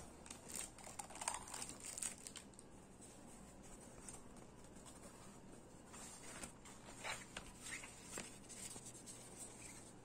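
Faint rustling and crinkling of packaging being handled, with small clicks and taps, in two spells: over the first two seconds and again from about six to eight and a half seconds in.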